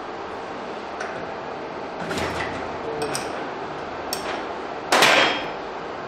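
Steel hand tools clinking against a Bosch common-rail diesel injector clamped in a stand as a special wrench is fitted onto its solenoid head, with a few light metal ticks and one loud metallic clank about five seconds in.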